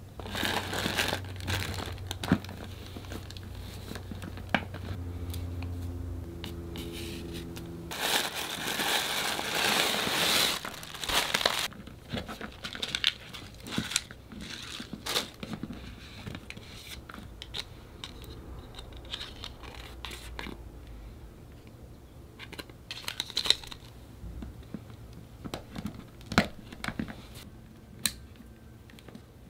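Glossy plastic pouch crinkling and rustling in the hands while its rope strap is threaded through, with scattered small clicks. The loudest, densest crinkling comes about a third of the way in and lasts a few seconds.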